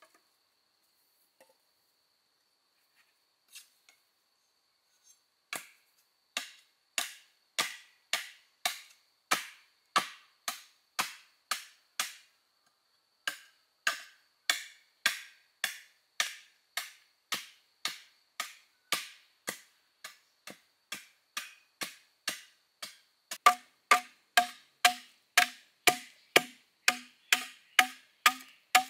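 Bamboo being chopped in a steady run of sharp strokes, about two a second, starting a few seconds in with a brief pause partway through. Near the end the strokes grow louder and each rings with a short note.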